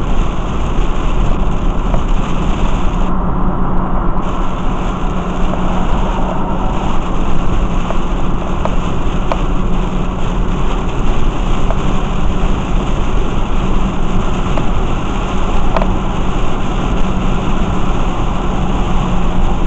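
Steady loud noise of heavy rain on a car and its tyres on the wet road, heard from inside the moving car's cabin, with a steady low hum underneath.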